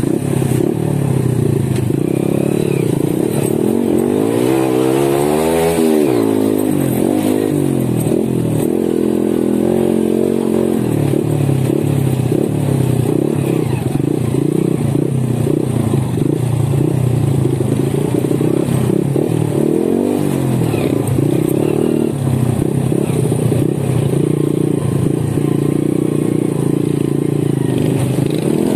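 Honda Win 100 single-cylinder four-stroke motorcycle engine running while riding a rough dirt trail, its pitch rising and falling with the throttle, most of all about four to six seconds in.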